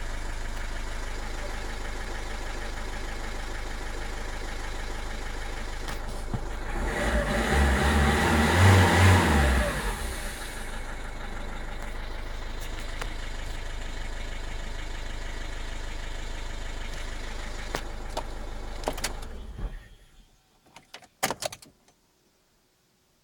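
Citroën C3 HDi diesel engine idling steadily, revved once for about three seconds and settling back to idle, then switched off near the end, followed by a few clicks. The owner puts the engine's trouble down to a blowing turbo, an EGR valve blocked with carbon deposits and a clogged particulate filter.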